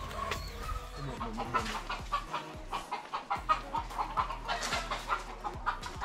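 Domestic fowl clucking: a quick run of short clucks, several a second, starting about a second in.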